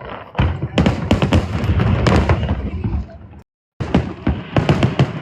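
Aerial fireworks bursting in rapid succession, many sharp bangs and crackles over a low rumble. The sound cuts out completely for a moment about three and a half seconds in, then the bursts resume.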